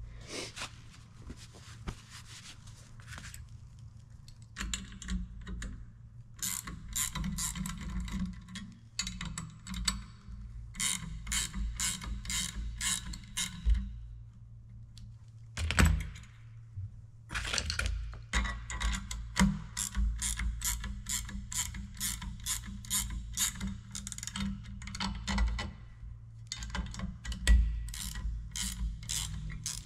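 Ratcheting wrench clicking in runs of quick strokes as it backs off the press tool on a tractor PTO housing. There is one louder knock about 16 seconds in.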